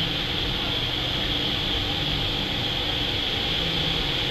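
Steady background drone: a constant high-pitched hiss over a low rumble, unchanging, with no distinct events.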